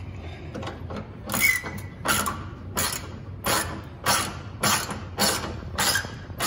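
Socket ratchet with an extension and 10 mm socket clicking in a steady rhythm, about three strokes every two seconds, as a headlight mounting bolt is undone. The strokes start about a second and a half in, each a short rasp of pawl clicks.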